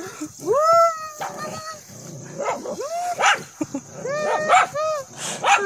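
A dog barking at a large lizard it is attacking: one longer high bark about half a second in, then a quick run of shorter barks and yelps.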